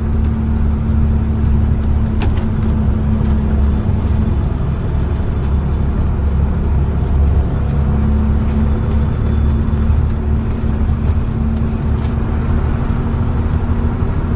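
Motorhome engine and road noise heard from inside the cab while climbing a long uphill road: a steady low drone with an even hum, and a couple of faint clicks.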